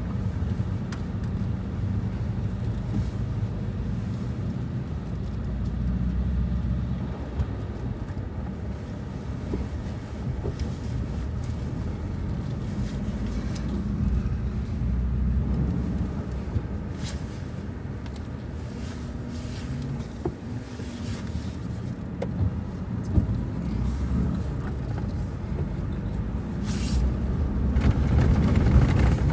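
A car engine running with road rumble as the car drives along, with a few light knocks.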